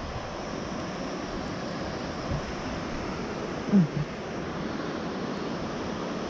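Steady rush of wind and motorcycle running noise while riding, with one short pitched sound a little before four seconds in.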